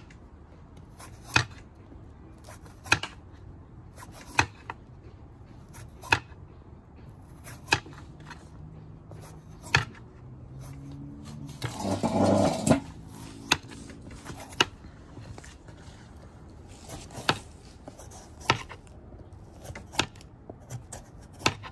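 Hand vegetable peeler stripping the skin off an opo squash in repeated downward strokes, each ending in a sharp tap on the bamboo cutting board, about one every second and a half. A louder noise lasting about a second comes about halfway through.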